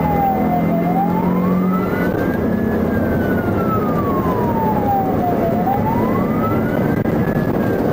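Police car siren on wail, rising and falling slowly about every five seconds. Beneath it is the steady engine and tyre noise of the cruiser driving, heard from inside the car.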